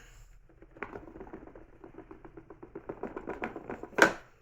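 Cardboard box being opened: a rapid crackling run of small ticks, building a little, then one sharp snap about four seconds in.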